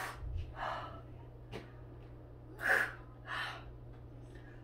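A woman's sharp gasps and breaths, four or five short ones with the loudest a little under three seconds in: pained breathing while waxing her armpit. A brief click comes between them.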